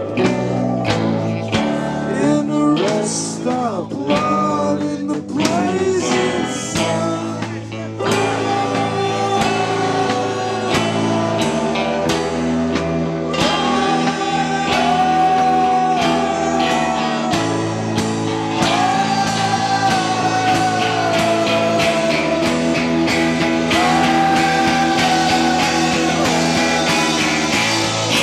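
Live rock band playing: electric guitars, bass and drums on a steady beat. A long held, gently bending melody line rides over the band in the second half.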